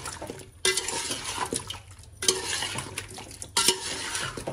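Long metal spatula stirring wet chicken pieces in yogurt and ginger-garlic masala in a large metal pot: a scraping stroke against the pot about every second and a half, with clinks of metal on metal and the squelch of the wet mixture.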